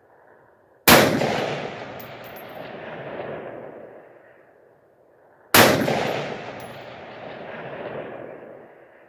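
Two AR-15 rifle shots about four and a half seconds apart, each a sharp crack followed by a long echo that rolls back from the surrounding hills and dies away over a few seconds.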